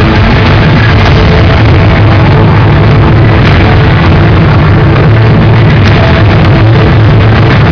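Loud live pop concert music from an arena sound system, recorded from the crowd, with a heavy, steady bass.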